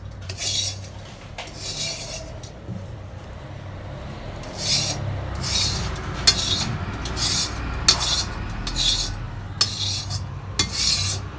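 Stone roller worked back and forth on a flat grinding stone (shil-pata), crushing onions into a paste of dried chilies and shidol shutki: a gritty rasp in separate strokes, about one a second.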